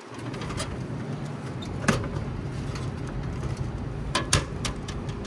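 Clear plastic flap of a vending machine's pickup bay clicking and knocking as it is pushed open, with a plastic tube rattling against it as it is pulled out; a few sharp knocks, the loudest about two seconds in and three close together near the end, over a steady low hum.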